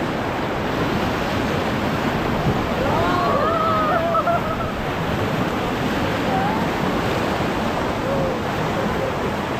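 Steady rushing of the Ganges river's water around a raft, with people's voices calling out briefly about three to four and a half seconds in.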